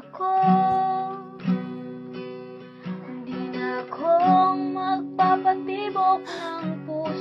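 Background music: a strummed acoustic guitar with a woman singing a slow melody.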